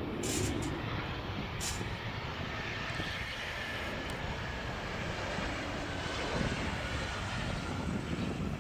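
Gulfstream G650 business jet landing, with the steady sound of its twin Rolls-Royce BR725 turbofan engines as it touches down and rolls out on the runway.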